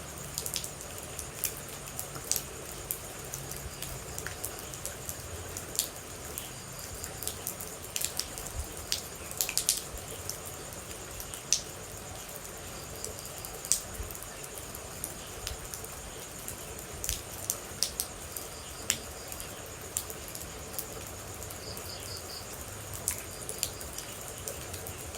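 Water droplets falling and dripping at irregular intervals, sharp separate drops over a steady rain hiss, with a faint steady high tone and a few soft chirps in the background.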